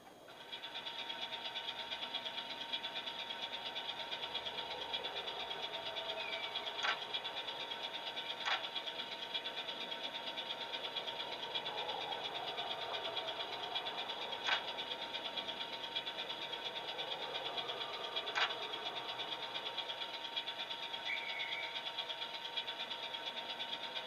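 Loksound DCC sound decoder in an OO gauge Class 308 EMU model playing the unit's standing sound through the model's small speaker: a steady, rhythmic mechanical running sound that comes on about half a second in, with four sharp clicks spread through it.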